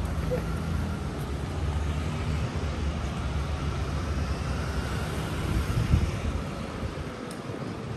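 Street traffic: a steady low rumble of passing vehicles, with a brief thump about six seconds in and the rumble easing near the end.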